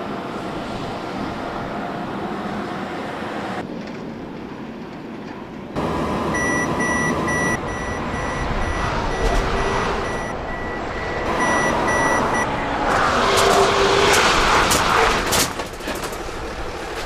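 Heavy truck running on the road, then a repeated high beeping from the Mercedes-Benz Actros's Active Brake Assist 2 collision warning for about six seconds. A loud rushing, rattling burst follows as the truck's automatic emergency braking brings it to a stop behind the car ahead.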